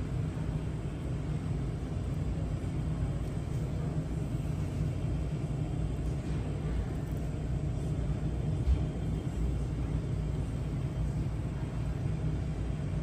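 Steady low rumble of a store's background noise, with one brief thump about nine seconds in.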